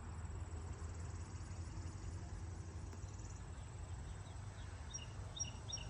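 Outdoor countryside ambience: crickets chirring steadily over a low rumble, with a few short bird chirps near the end.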